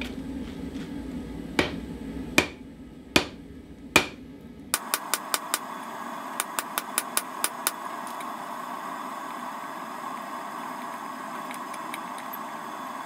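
Hammer striking hot steel rebar over a steel bending jig: four heavy blows with ringing, about one a second. Then a steady hum with a quick run of lighter, sharper taps.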